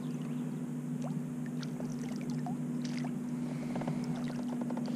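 Small splashes, clicks and knocks of a hooked largemouth bass being played up beside a plastic fishing kayak and a landing net dipping into the water, over a steady low hum. A quick run of ticks comes a little before the end.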